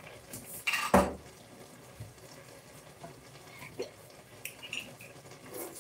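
A brief rush of running or splashing liquid about a second in, then a few faint light clicks of kitchenware being handled.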